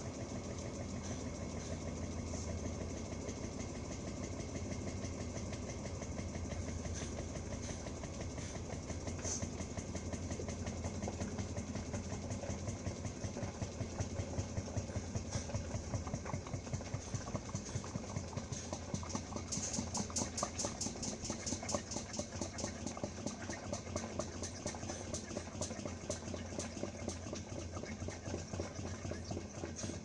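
Roper washing machine running, with a steady low motor hum. About halfway through, a regular pulsing sets in and grows sharper in the last third.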